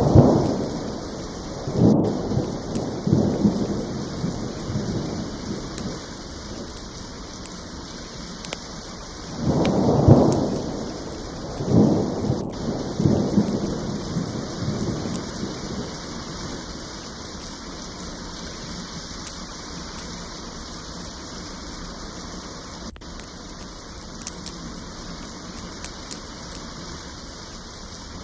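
Steady rain with thunder rolling through it: a rumble right at the start, another from about two to four seconds, and two more around ten and twelve to fourteen seconds. The second half is rain alone.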